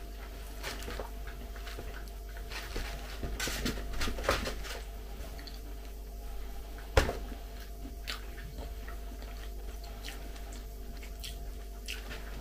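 Close-up chewing and mouth sounds of someone eating a sushi roll, with scattered soft clicks of chopsticks against a plastic tray. One sharp click about seven seconds in.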